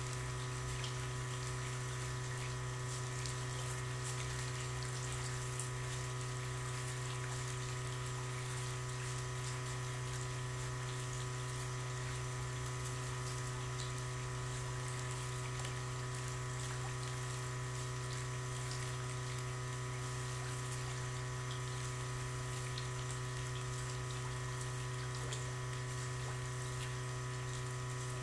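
A steady low mechanical hum with several higher steady tones, unchanging throughout, over a faint wash of moving water in a crowded fish pond.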